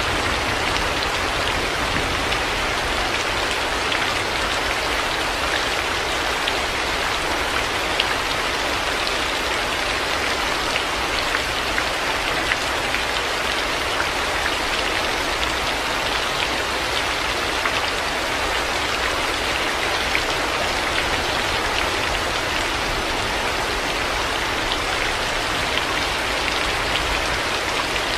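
Heavy rain falling steadily, an even hiss with scattered drops ticking on surfaces.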